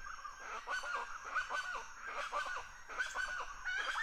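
Repeated short animal calls, about three a second and irregular.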